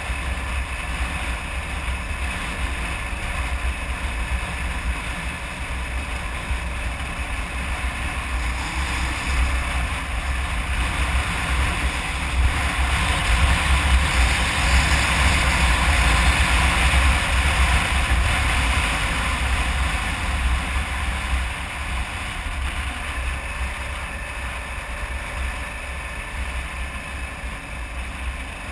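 Wind rushing over the microphone of a camera on a moving 2009 Kawasaki KLR 650 dual-sport motorcycle, with its single-cylinder engine and tyres running steadily underneath at road speed. The rush swells a little through the middle and eases near the end.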